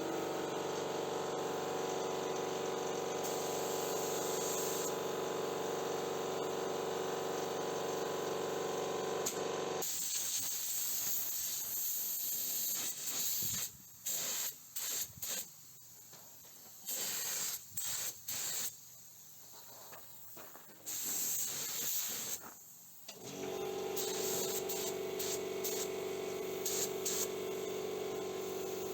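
Paint spray gun hissing as it lays on a wet coat of clear coat, with a steady machine hum under the long passes. In the middle the spray comes in short on-off bursts, then runs steadily again near the end.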